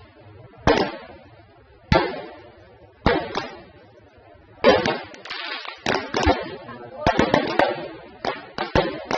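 Fireworks going off: four single bangs about a second apart, each trailing off, then a quick run of cracks and pops through the second half.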